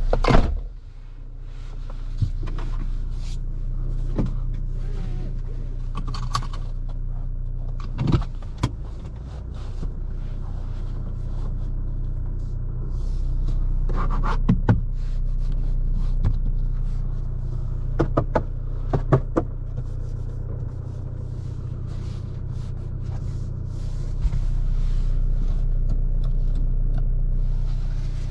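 Fiat Toro's 2.0 diesel engine and road noise while driving, a steady low drone that swells and eases a few times as the truck pulls. Sharp clicks and knocks come every few seconds over it.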